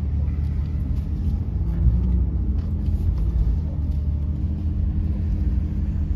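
Four-wheel drive engine running and tyres rolling through soft beach sand, heard from inside the cabin as a steady low drone.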